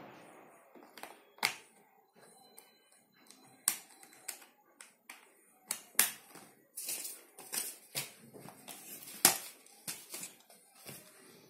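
Scattered sharp plastic clicks and knocks from handling the underside of a Logitech MK275 wireless keyboard. The keyboard is turned over near the end.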